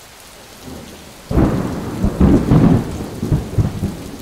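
Wind buffeting the phone's microphone: a low rumble that starts suddenly about a second in and surges unevenly.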